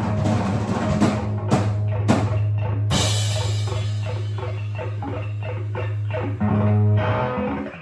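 Rock music with a drum kit and guitar over a held low note, cutting off just before the end.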